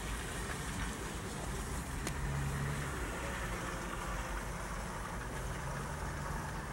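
Steady background noise inside a parked van's cabin, with a faint low hum that comes and goes. There are two light clicks, near the start and about two seconds in, from the cardboard sleeve of a sock package being turned in the hand.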